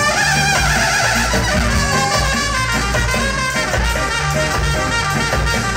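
Live ska band playing loudly, a horn section of saxophones, trumpet and trombones over electric guitar and a steady bass line.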